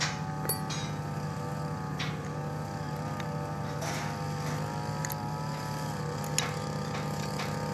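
Small brush cutter engine idling steadily, with a few light metallic clicks as a grinding disc is handled and fitted to the cutter's gear head.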